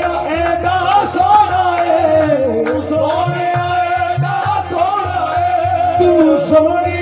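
Live qawwali music amplified through a PA: harmonium melody with male voices holding and ornamenting long notes over a pulsing low beat.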